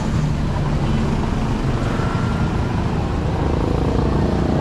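Motorcycle engines running close by, with a steady engine hum under general street traffic noise.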